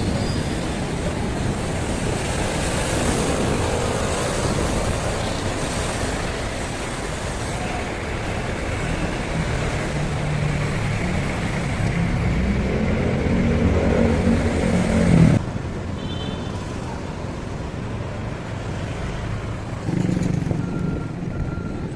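Road traffic heard while riding: motor vehicles running along the road, one engine growing louder to a peak about fifteen seconds in, after which the sound drops off suddenly.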